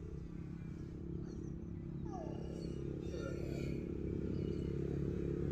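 A small engine running steadily and getting gradually louder, with a few faint higher chirps in the middle.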